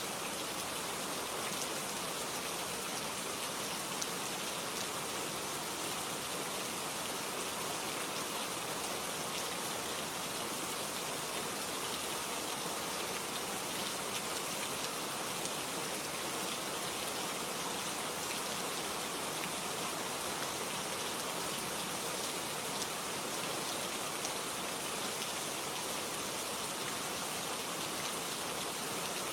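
Steady rain falling, with a dense even hiss and scattered small drop ticks.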